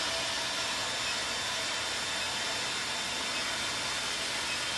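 JL-25KW induction melting furnace running with its cooling equipment: a steady machine hum and hiss with faint high steady tones. The operator says the machine is acting up because the current keeps swinging up and down, so the copper does not melt well.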